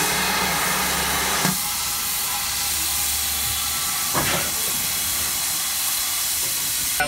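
Steam hissing steadily on the footplate of the steam locomotive Bradley Manor. A low hum drops away about a second and a half in, and there is one brief knock around four seconds in.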